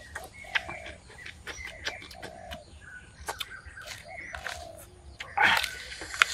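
Birds calling in short repeated notes every second or two, over scattered sharp clicks and taps, with a brief louder noisy burst about five and a half seconds in.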